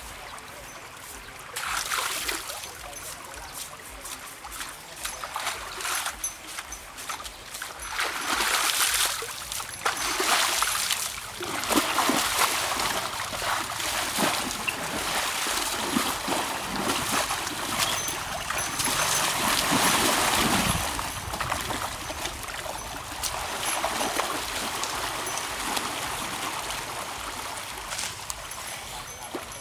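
Water splashing and trickling in irregular bursts as cattle are washed.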